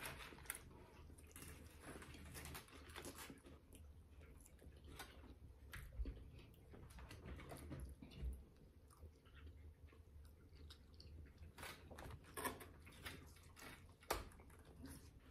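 Faint chewing and biting of a cheeseburger and fries, with scattered soft mouth clicks and smacks.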